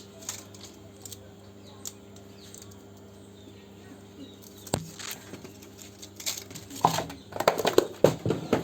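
Light clicks and rustling from small parts and tools being handled on a repair bench, getting busier near the end, over a steady electrical hum.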